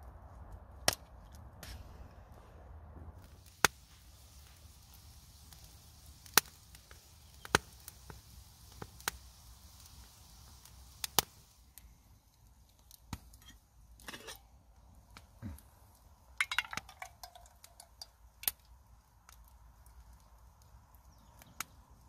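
Sharp, isolated snaps or clicks at irregular intervals, one every one to three seconds. A short falling tone comes with a quick cluster of ticks about three-quarters of the way through.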